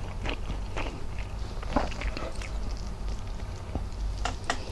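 Close-miked eating: a woman chewing squid adobo and rice, with scattered wet mouth clicks and smacks and two sharper clicks near the end, over a steady low hum.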